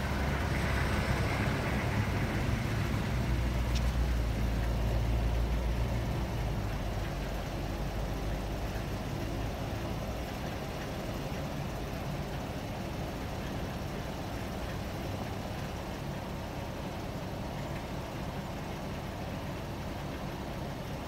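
A low, steady engine-like hum, loudest in the first ten seconds or so, then fading to a quieter steady drone.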